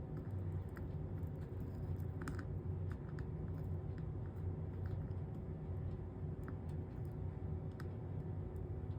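Soldering iron running 60/40 solder along the copper-foiled seams of a stained-glass piece, with faint scattered ticks and crackles as the flux sizzles under the heat, over a steady low hum.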